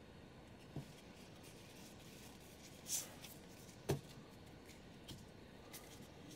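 Faint handling of trading cards: a few soft taps and a short slide as a card is laid down on the spread and the next one is picked up.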